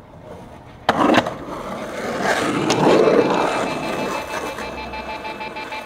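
Skateboard landing a drop off a high wall: two sharp slaps about a second in as the board and wheels hit the pavement, then the wheels rolling away, swelling and then fading over a few seconds.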